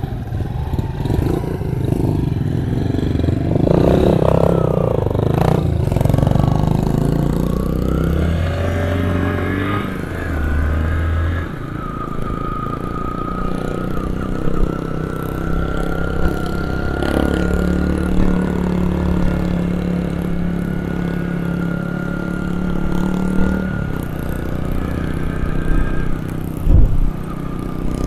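Yamaha XTZ 125's single-cylinder engine running under way, its pitch rising and falling as the bike speeds up and changes gear, with a few sharp knocks near the end.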